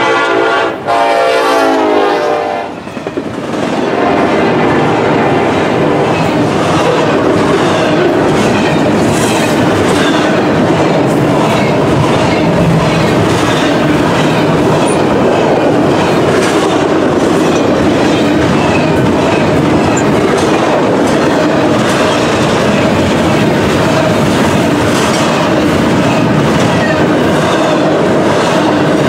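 Freight diesel locomotive's air horn sounding a chord, with a short break about a second in, cutting off about two and a half seconds in; then a double-stack intermodal freight train rolling past, a steady rumble with its wheels clicking over the rail joints.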